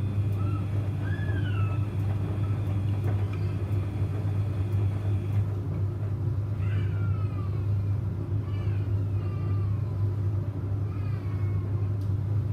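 Samsung washing machine running a 95 °C boil-wash cycle, a steady low hum. Several short, high, wavering squeals that rise and fall come over it every few seconds.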